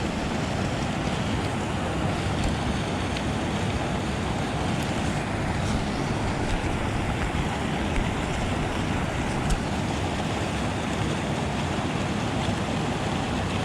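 Steady rushing of water spilling over a creek dam, an even noise that holds level without a break.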